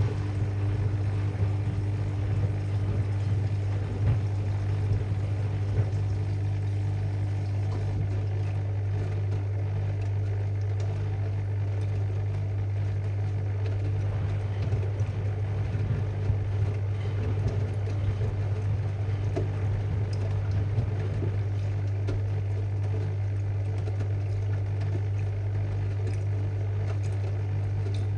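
AEG Lavalogic washing machine's drum turning steadily at distribution speed while water runs in for the final rinse: an even motor hum with water noise.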